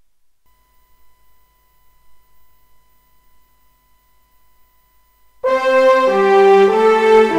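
A faint steady high tone, then brass music starting suddenly about five and a half seconds in, several notes sounding together as chords.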